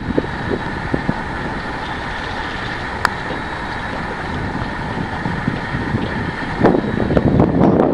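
Wind buffeting the microphone over a steady mechanical hum on a boat. A single sharp click comes about three seconds in, and the wind gusts harder near the end.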